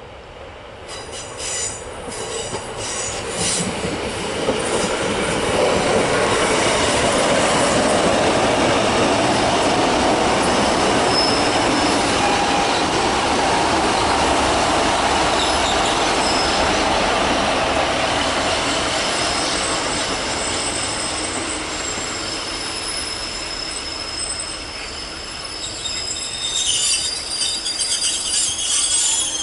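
GWR Class 150 Sprinter diesel multiple unit approaching and running into the station. It grows louder over the first few seconds and holds steady while passing close, then high-pitched squealing starts near the end as it slows to the platform.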